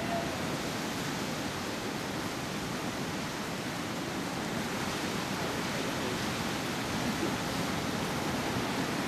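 Steady, even wash of ocean surf on the beach, with no distinct individual sounds standing out.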